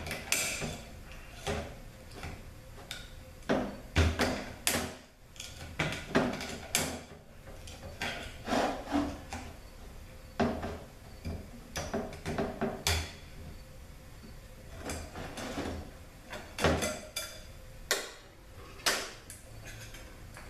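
Irregular metallic clanks, knocks and scrapes as the forward clutch drum of a Ford 4R100 automatic transmission is handled on a steel workbench and pried at with a screwdriver to work its Belleville spring out.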